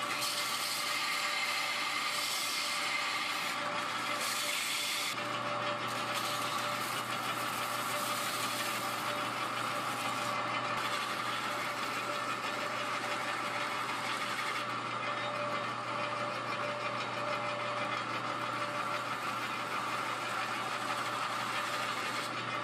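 Bench Pro 4x32 belt sander running steadily while a steel blade blank cut from a reciprocating saw blade is ground against its belt. The grinding hiss rises and falls as the blade is pressed on, heaviest in the first five seconds.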